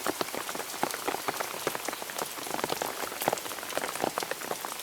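Heavy rain pouring down, a steady rush filled with many separate drop hits landing close by.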